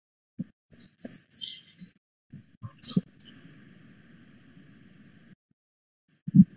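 Scattered soft clicks and brief rustling handling noises from an open microphone on a video call, with a faint steady hiss in the middle.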